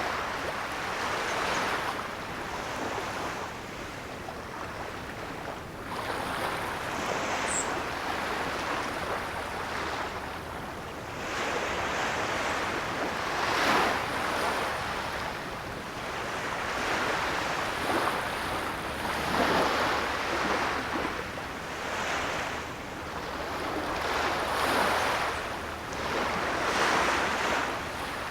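Ocean surf: waves breaking and washing in a continuous rush that swells and eases every few seconds.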